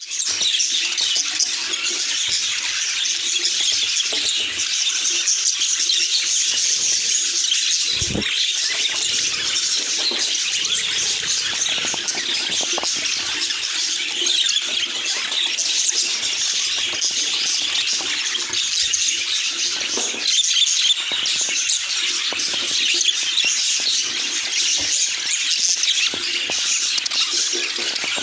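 Budgerigars chattering and chirping without a break, a dense warble of short high calls, with a brief low thump about eight seconds in.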